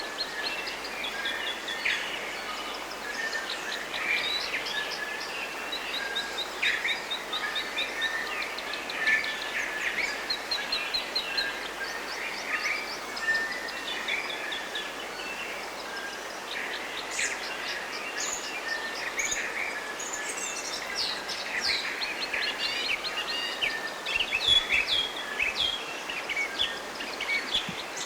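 Several birds singing and calling at once, with rapid trills and short chirps overlapping, over a steady soft hiss.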